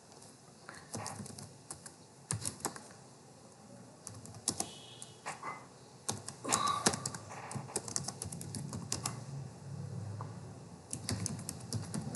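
Computer keyboard being typed on as terminal commands are entered: irregular keystroke clicks, with quicker runs of typing about two thirds of the way through and again near the end.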